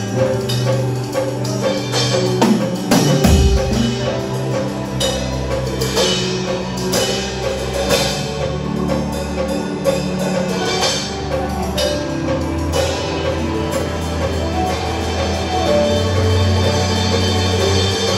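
Premier drum kit played along with music that carries sustained bass and keyboard notes, with repeated cymbal and drum hits over it. A deep falling sweep comes about three seconds in.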